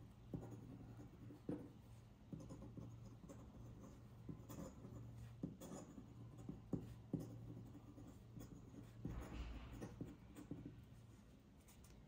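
Metal dip-pen nib on a feather quill scratching faintly across paper as it writes, with short irregular scratches and small ticks as the nib touches down and lifts between letters; the writing stops near the end.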